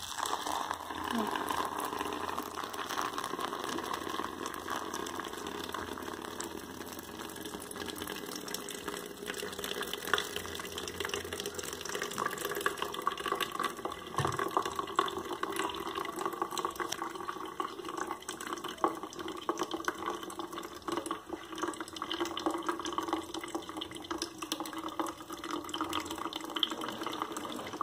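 Hot cinnamon tea poured from a pot into a Melitta coffee filter cone, the liquid splashing and trickling steadily through the filter into the container below.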